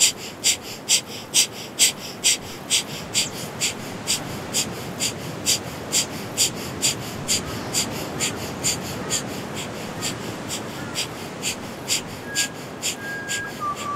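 Kundalini breath of fire: rapid, forceful exhalations through the nose in a steady rhythm, about two a second. A bird gives a few short calls near the end.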